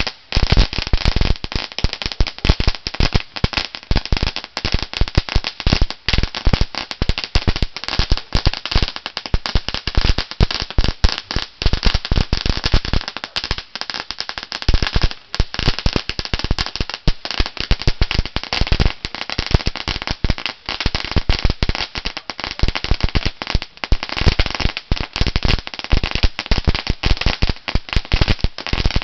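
Shogun 'Crackling Crawfish' ground firework burning: a dense, unbroken crackle of many small rapid pops that goes on without pause.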